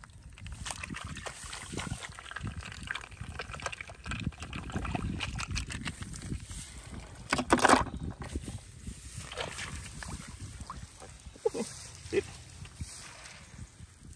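Hands rustling through dry rice stalks and squelching in shallow paddy mud and water while picking apple snails. About halfway through comes a louder, sharp splash-clatter as snails are dropped into a plastic bucket.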